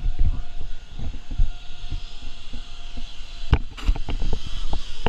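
Footsteps and the knocks of a handheld camera being carried while walking: a run of irregular low thumps, with two sharp clicks about three and a half seconds in.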